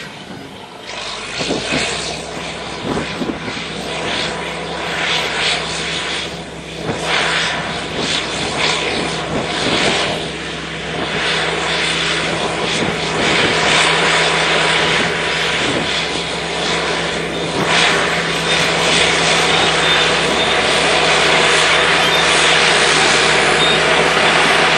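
Bulldozer's diesel engine running steadily under load, a constant drone that grows louder through the second half.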